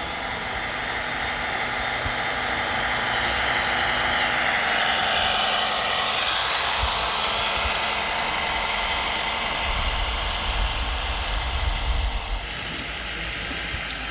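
Electric drive motor and gearbox of a six-wheeled radio-controlled model tipper truck whining as it drives, the whine rising in pitch around the middle as it speeds up and then falling back.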